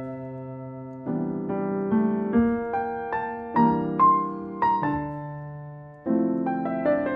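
Background music: a solo piano playing slow chords and a melody line.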